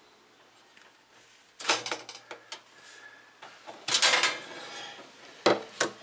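Plastic wire connector and wiring handled by hand at a refrigerator's defrost bimetal: a few bursts of clicking, rattling and rustling, the loudest about four seconds in, with two sharp clicks near the end.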